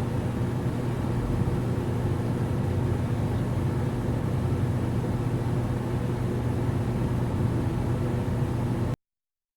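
A steady, even engine-like hum with a low drone, running with no change until it cuts off suddenly near the end.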